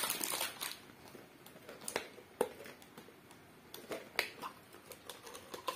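Clear plastic bangle containers being picked up and handled: scattered light, sharp clicks and taps, a few louder ones about two seconds in and again past four seconds.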